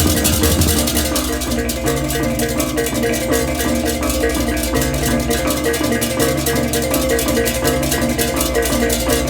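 Balinese baleganjur gamelan ensemble playing. Clashing ceng-ceng cymbals strike fast and densely over a repeating figure of short pitched notes from the reyong gong-chimes, with deep gong and kempur hums underneath.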